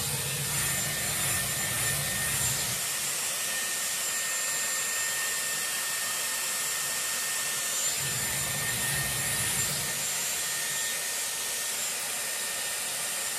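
Dyson Airwrap running with its 30 mm curling barrel: a steady rush of blown air with a thin high motor whine, and a low rumble that swells and fades twice.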